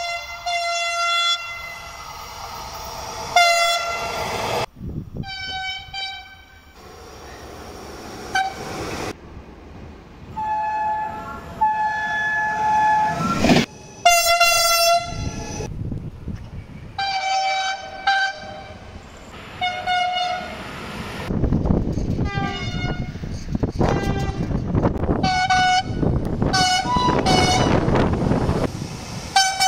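Horns of Italian electric passenger trains sounding again and again from several trains in turn: short toots and longer blasts, some two-tone, with abrupt cuts between them. In the last third a train runs past with a loud rushing rumble under further horn blasts.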